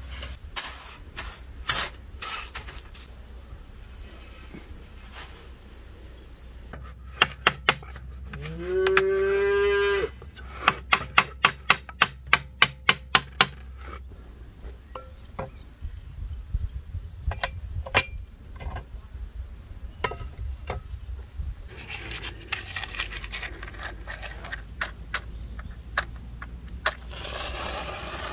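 A cow moos once about eight seconds in, a single call rising in pitch for about a second and a half. Around it, a mason's trowel taps sharply against the hollow bricks and mortar of a brick stove being laid, including a run of even taps about four a second just after the moo, over a steady high chirring of crickets; a match is struck near the end.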